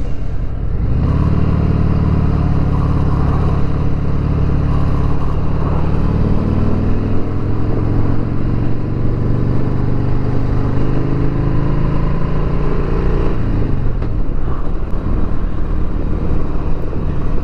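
2020 Harley-Davidson Sport Glide's Milwaukee-Eight 107 V-twin engine under way, heard from the rider's position. The engine pulls harder about a second in, holds with slowly rising revs, then eases off the throttle near the end.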